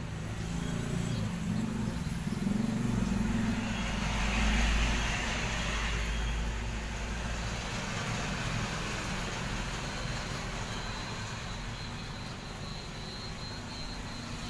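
Steady low rumble with a hiss, like a passing motor vehicle, swelling about four seconds in and slowly fading.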